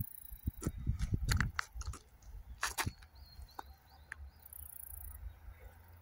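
Wind rumbling on a handheld phone microphone, with a run of sharp clicks and knocks in the first three seconds as the phone is handled and turned. A few faint chirps come around the middle.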